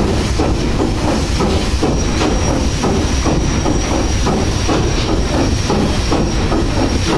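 PS Waverley's three-crank diagonal triple-expansion steam engine running, a loud, steady, fast rhythm of clanks and knocks from its cranks, rods and valve gear over a haze of steam hiss. A thin, steady high whistle joins about two seconds in.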